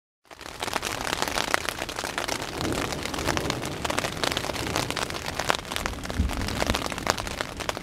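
Heavy rain pattering densely at night, many separate drops striking close to the microphone over a steady hiss. Two low rumbles come through the rain, about a third of the way in and again near the end.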